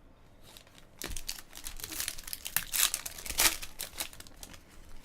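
Plastic-foil wrapper of a 2016 Panini Prizm Football card pack crinkling and tearing as the pack is ripped open, starting about a second in and loudest a little past the middle.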